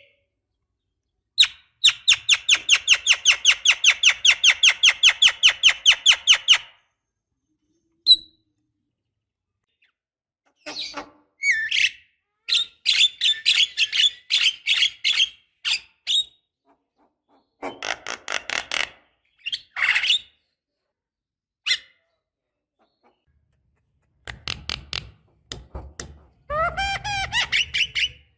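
Javan myna calling: a fast, even run of about six short, harsh notes a second lasting about five seconds, then bursts of squeaky, chattering calls with short pauses between them.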